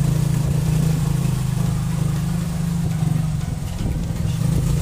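The motorcycle engine of a tricycle running steadily as it carries passengers, heard from inside the sidecar.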